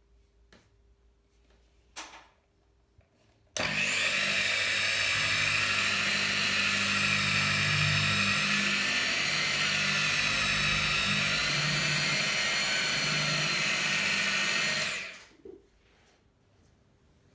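Electric rotary car polisher with a foam pad running steadily on clear-coat paint, machine-polishing the finish. It switches on abruptly about three and a half seconds in, runs for about eleven seconds, then winds down quickly. A short knock comes before it starts.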